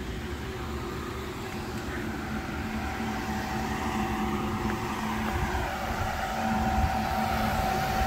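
Large outdoor drum-style cooling fan running, a steady hum with a higher whine over the rush of air, growing louder as it is approached.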